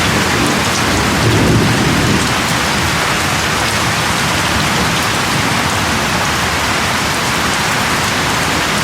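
Heavy rain falling in a steady downpour, with a low rumble of thunder swelling about a second in.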